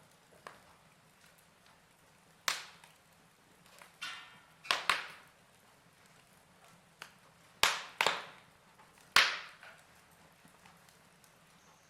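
Fire crackling: sharp, irregular pops and snaps, each dying away quickly, the loudest about nine seconds in, over a faint steady background.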